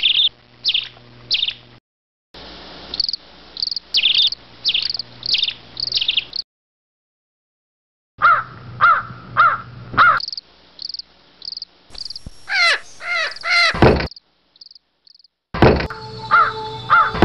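Birds calling in the forest: series of short, repeated downward-sliding calls, about two a second, some higher and thinner, some lower and harsher. The sound cuts out to silence briefly a few times.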